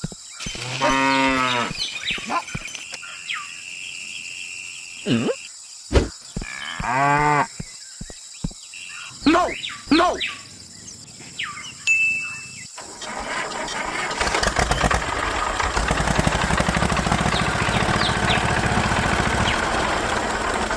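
Cows mooing several times, long pitched calls. Then, about two-thirds of the way in, a tractor-like engine starts running steadily to the end.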